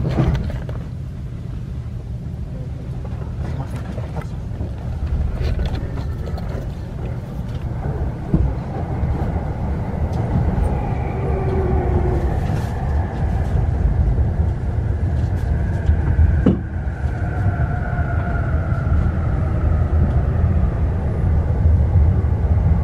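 Inside an electric commuter train as it pulls away from a station: a steady low rumble of wheels on rail, with the traction motors' whine rising and shifting in pitch from about nine seconds in as the train gathers speed. A sharp click sounds near the start and another later.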